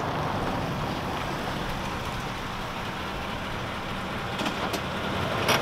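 Lexus GX460 SUV's V8 engine running at low speed as it pulls in off the street, a steady even rush with a few light clicks near the end.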